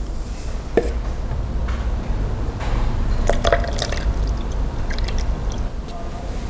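Liquid transparent ceramic glaze poured from a plastic jar into a plastic measuring cup, with wet splashing and dripping and a few light clicks of the stirring stick against the cup.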